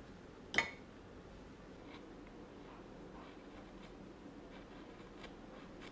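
Hand gouge and chisel cutting wood: faint scraping and scratching strokes, with one sharp knock about half a second in.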